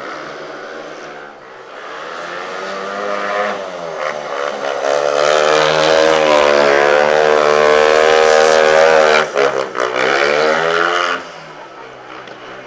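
Speedway motorcycle's single-cylinder engine running on a lap of the track. It grows louder over a few seconds, holds loud, its pitch dips and recovers a couple of times, then it falls away quickly near the end.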